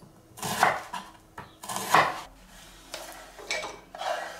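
A chef's knife slicing an onion on a bamboo cutting board: two sharp knocks of the blade on the board, about half a second and two seconds in. A softer scraping follows near the end.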